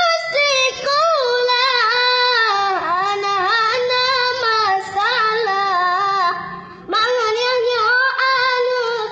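A child singing solo in a high voice, holding long notes that bend and waver in pitch. The voice stops for a moment about six and a half seconds in, then carries on.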